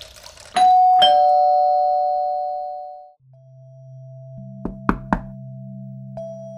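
Electronic doorbell chiming a two-note ding-dong, the second note lower, ringing out for about two seconds. A steady low drone of background music then comes in, and three quick knocks sound on a wooden door about five seconds in.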